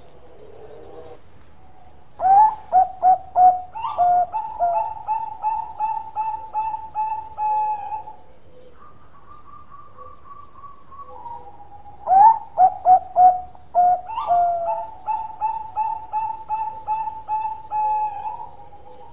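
Zebra dove of the Thai 'Bangkok' song type singing its long song twice: each phrase opens with four or five loud quick notes and runs on into a long, even series of rolling coos, about three a second. A fainter, higher run of coos sounds between the two phrases.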